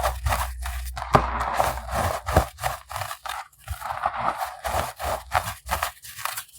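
Unsifted pebbles of compressed baking soda being crushed: dense, irregular crunching and crackling with two brief pauses.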